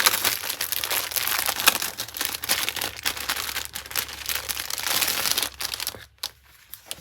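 Packaging being crinkled and rustled by hand as a wrapped bundle of quilting fabric is opened: a dense, crackly rustle that stops about six seconds in.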